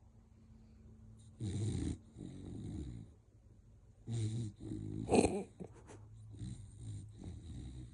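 American Bully dog snoring in its sleep: a run of rough snores with each breath in and out, the loudest about five seconds in.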